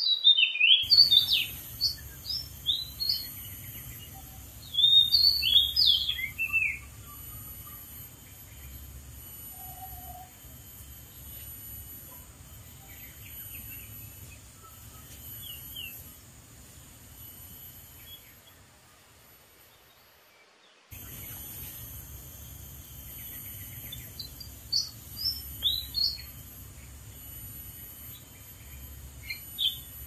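Oriental magpie-robin singing: phrases of quick, varied whistled notes that jump up and down in pitch. The phrases come at the start, again a few seconds later and again late on, with scattered quieter notes between, over a steady outdoor hiss.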